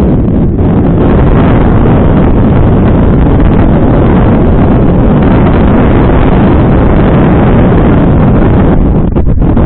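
Loud, steady wind buffeting on a helmet-mounted action camera's microphone during a fast mountain-bike descent, mixed with the rumble of the bike's tyres and frame over the trail.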